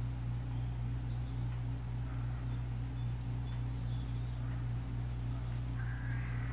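A few faint, short, high bird chirps, from a garden nature video played through a phone's speaker, over a steady low hum.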